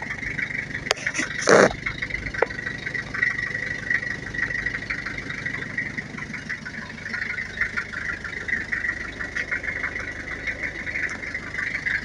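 Toyota van's engine idling steadily, with a single clunk about one and a half seconds in.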